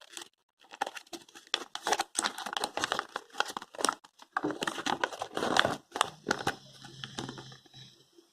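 Paper crinkling and rustling in irregular crackles as a folded instruction manual is unfolded and handled.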